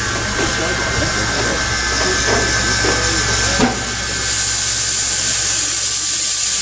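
Steam locomotive letting off steam: a steady hiss that grows louder about four seconds in, with a short knock a little past halfway.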